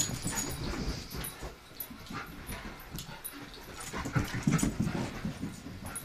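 Two dogs playing: scuffling and irregular thumps of paws on a carpeted floor, mixed with the dogs' own noises, busiest at the start and again in the second half.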